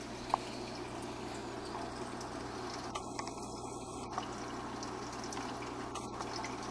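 Steady sound of a reef aquarium's circulating water, a constant trickle and splash over a low steady hum. A single sharp tick about a third of a second in, with a few fainter drip-like ticks after it.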